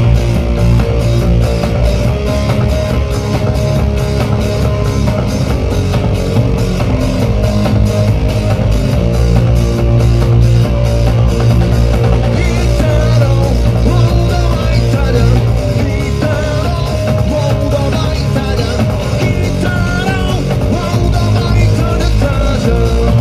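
Live rock band playing loudly, with a sung vocal line coming in about halfway.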